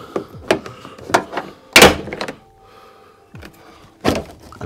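Plastic interior trim panel of a BMW F20 being prised off: several sharp clicks and knocks as its rivet clips pop and the panel shifts, the loudest a little under two seconds in.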